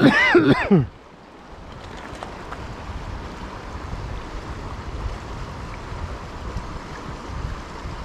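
A short loud vocal exclamation in the first second, then wind buffeting the microphone with an uneven low rumble over the steady rush of a shallow river.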